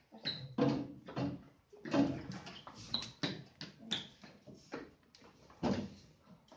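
Metal-framed school chairs being moved and set down: a string of irregular knocks and scrapes on the floor, with a few short squeaks, and people shuffling into their seats.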